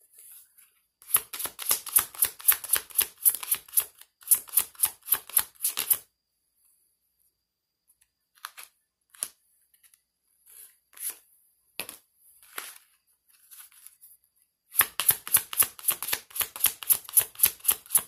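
A deck of oracle cards shuffled by hand in rapid, rhythmic strokes: one bout starting about a second in, a quieter stretch of a few scattered taps, then another bout near the end.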